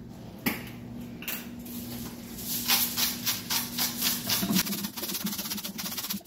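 Hand-twisted spice grinder cranked over a soup pot, a fast run of gritty crunching clicks as it grinds seasoning into the soup, starting about two and a half seconds in. A single knock sounds about half a second in.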